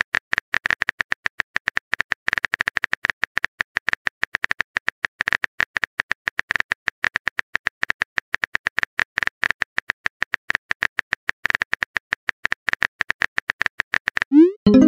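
Phone-keyboard typing sound effect: rapid, irregular clicks, many a second, while a long message is typed. Near the end the clicking stops and a short rising tone sounds as the message is sent.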